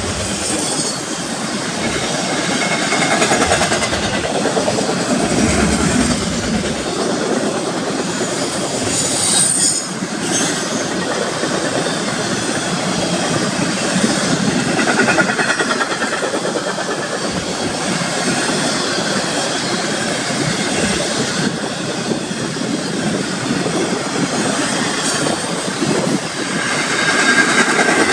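Intermodal freight cars, double-stack container cars and trailer flatcars, rolling steadily past close by. Their steel wheels clatter over the rail joints, with a brief high wheel squeal now and then.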